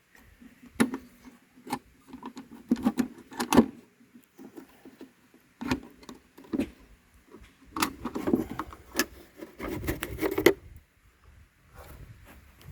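Hood of a 1956 Elgin 5.5 hp outboard motor being unlatched and taken off: scattered clicks, knocks and rubbing of the metal cover being handled, busier in the second half.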